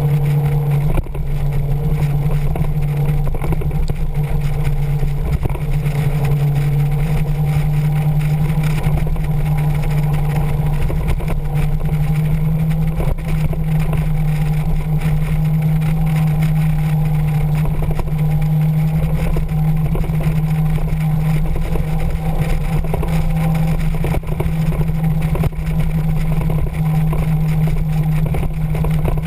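Motorcycle engine running steadily at a constant cruising speed, with wind rushing over the microphone.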